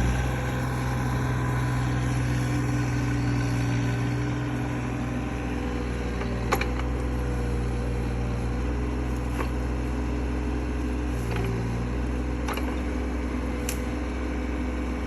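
Mini excavator engine running steadily while the grapple works, with the pitch shifting slightly as the load changes. About five sharp knocks or snaps come through the second half.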